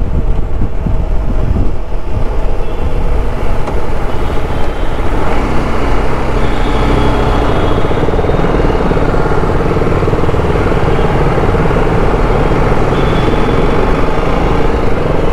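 TVS Apache RR 310's single-cylinder engine running while the motorcycle is ridden, heard with road and wind noise; its drone steadies into an even cruise about five seconds in.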